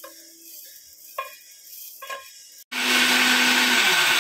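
Dry roasted moong dal poured into a steel mixer-grinder jar, with a few soft taps of the wooden spatula. About two and a half seconds in, an electric mixer grinder starts loud and runs steadily with a low motor hum, grinding the dry roasted dal to flour.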